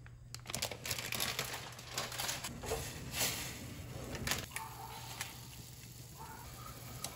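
Plastic wrapper of a Shin Ramyun instant-noodle packet crinkling as it is handled, in a run of crackles over the first four or so seconds.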